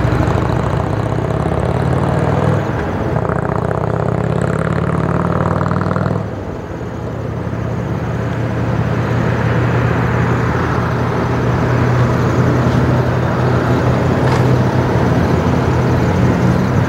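Motor vehicle engines running steadily, with a low hum that changes character about six seconds in.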